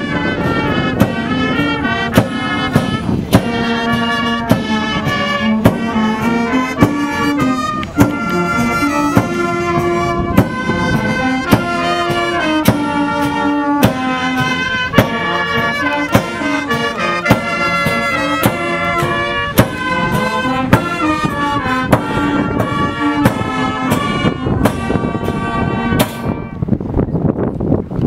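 Brass band playing outdoors, with tubas and trumpets carrying the tune and a bass drum keeping a steady beat.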